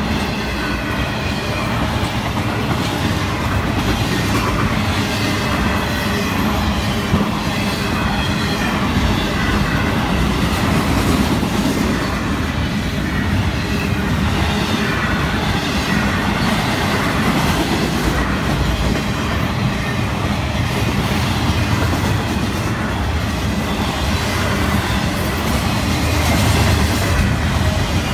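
Florida East Coast intermodal freight cars rolling past, a steady rumble with wheels clicking on the rails and a faint, wavering wheel squeal.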